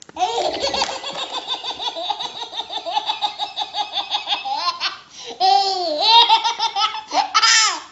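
A baby belly-laughing: a long run of rapid laughs, then, after about five seconds, two longer, drawn-out squeals of laughter.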